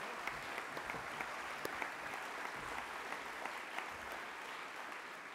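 Audience applauding, a dense patter of many hands clapping at a steady level that eases slightly near the end.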